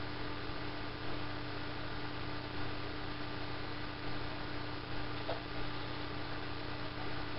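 Steady electrical hum over a constant hiss, the background noise of a webcam's microphone with nothing else going on, and a faint tick about five seconds in.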